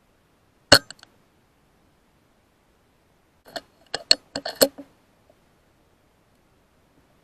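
Air rifle sounds: one sharp shot-like click just under a second in, with two faint taps right after it, then a quick run of six or seven sharp metallic clicks around four seconds in.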